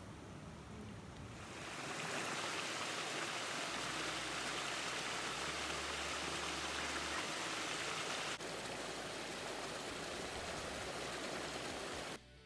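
Stream water rushing and splashing down small cascades between boulders into a pool, a steady rush that is fainter for the first couple of seconds and then holds even, cutting off sharply just before the end.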